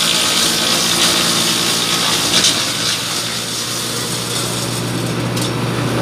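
Hasatsan DP 700 T wood chipper, driven by a tractor, chipping branches: a dense, hissing rush of shredding wood with a few sharper crackles, easing about halfway through and leaving the steady hum of the chipper and tractor running.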